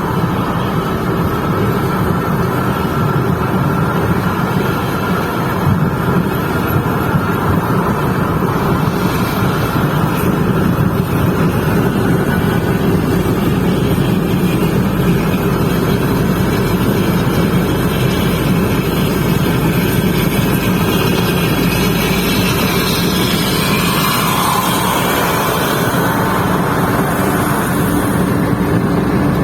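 Steady, loud running noise of a coach bus travelling at speed on a highway: engine drone mixed with tyre and wind noise, without a break.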